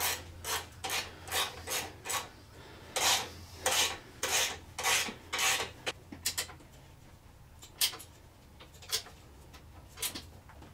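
Hand ratchet wrench worked in quick back-and-forth strokes, each stroke a short rasp of ratcheting clicks, tightening the bolts of an exhaust crossover clamp and bracket. The strokes come about twice a second, then thin out to a few odd clicks for the last few seconds.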